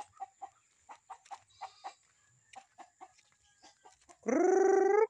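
Native chickens clucking with many short, quiet clucks, and near the end a much louder drawn-out, wavering call lasting under a second.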